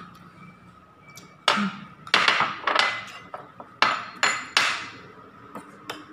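Ceramic bowls and a metal ladle knocking and clinking against each other and a glass-topped table: about six sharp clatters with a short ring, starting about a second and a half in.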